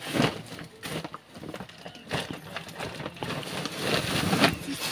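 Hands rummaging through a fabric bag, rustling the plastic-wrapped packages inside with irregular crinkles and soft knocks.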